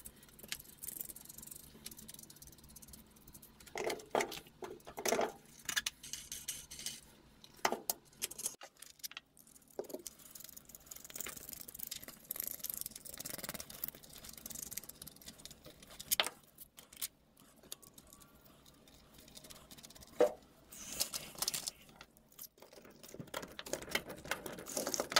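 Nuts, washers and threaded-rod axles clinking and rattling as plastic bow rollers are bolted on by hand, with scattered sharper knocks now and then.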